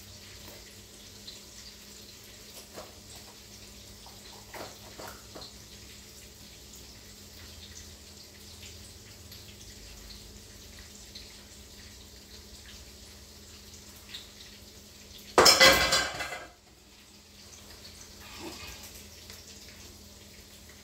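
Kitchen utensils and cookware being handled: a few light clicks of a knife, then one loud clatter of metal on a pot about fifteen seconds in, lasting about a second, over a faint steady hum.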